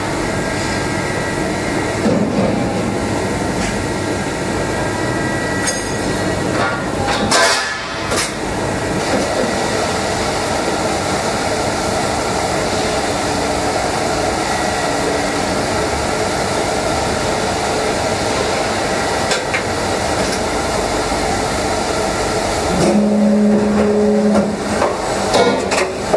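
BLM Adige CNC tube laser cutting machine's automatic loader and feed running, moving a long steel tube along its roller bed into the chuck: a steady mechanical running noise with a few metallic clanks, and a low steady hum that comes in near the end.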